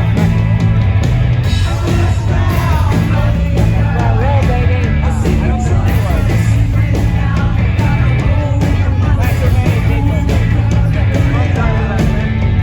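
Loud rock music: a singing voice over steady held bass notes and drums.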